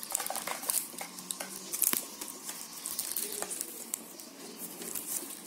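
Plastic weaving wire rustling, scraping and clicking as hands pull strands through and tie a knot, with one sharper click about two seconds in.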